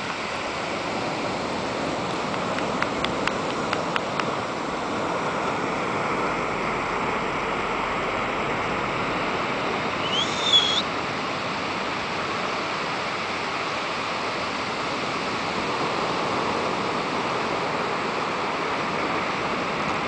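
Ocean surf washing steadily, with a few faint ticks about three to four seconds in and a short rising squeak about halfway through.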